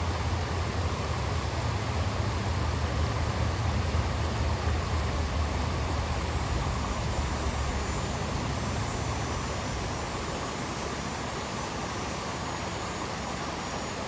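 Shallow rocky stream rushing over stones in a small riffle, a steady hiss. A low rumble lies under it and eases off about two-thirds of the way through.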